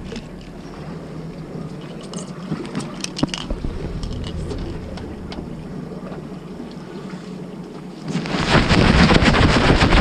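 Fishing boat's engine idling as a steady low hum, with a few light clicks. About eight and a half seconds in, a loud rushing noise swamps the microphone for about two seconds.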